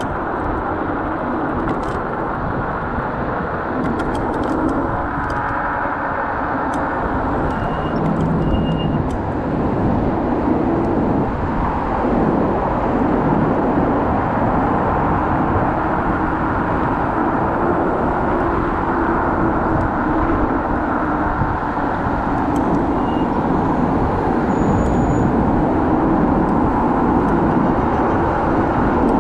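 Steady rumble and rushing noise of riding a Kaabo Wolf Warrior electric scooter along city roads among car traffic, with a few short high beeps mixed in.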